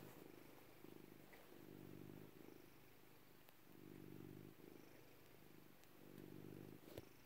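Domestic cat purring softly, the purr coming in repeated swells with each breath.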